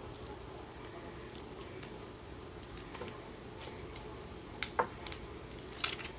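Scattered light clicks and ticks of small metal key-chain hardware being handled as a tassel is fitted onto a key ring. Sharper clicks come about three-quarters of the way through and again near the end.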